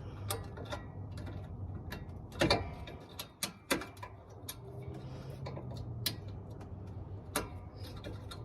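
Scattered sharp clicks and knocks of tools and parts being handled, the loudest cluster about two and a half seconds in, over a steady low hum.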